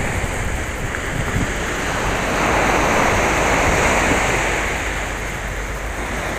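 Small ocean waves breaking and washing up a rocky sand beach; the surf swells louder about halfway through, then eases. Wind rumbles on the microphone.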